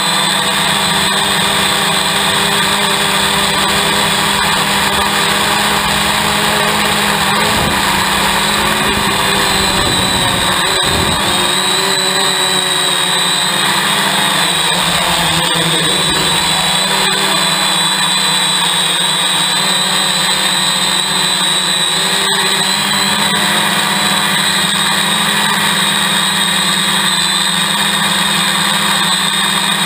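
Hexacopter's six electric motors and propellers whining steadily, heard up close from the craft's own camera, the pitch wavering slightly as the throttle changes. A brief low rush joins in about eight to eleven seconds in.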